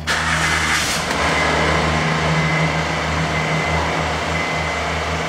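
2011 Honda Crosstour engine starting: it catches suddenly, runs louder for about the first second, then settles into a steady idle. A new spark plug has just gone into cylinder 3, which had been misfiring, and the owner finds it sounds better.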